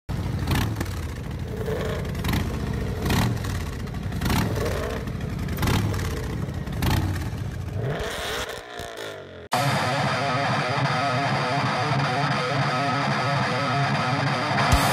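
Channel intro sound design: an engine revving in rising and falling sweeps over a steady beat, which cuts off sharply about nine and a half seconds in. Rock music follows, with drum hits coming in near the end.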